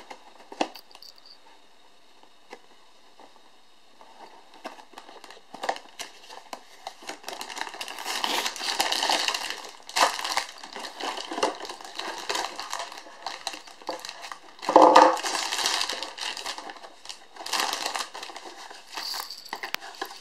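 A cardboard Lego Technic set box being opened and its plastic parts bags handled, the bags crinkling and rustling. Fairly quiet for the first few seconds, with one louder handling noise about 15 seconds in.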